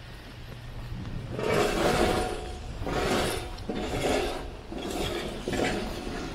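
Footsteps crunching on snow at a walking pace, about five steps beginning about a second and a half in.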